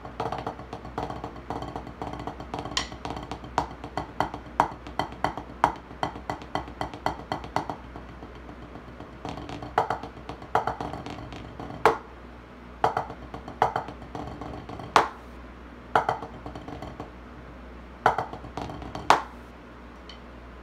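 Wooden drumsticks striking a practice pad with a dry, woody click: a fast continuous run of strokes for about eight seconds, then sparser groups of strokes with single louder accents, stopping shortly before the end.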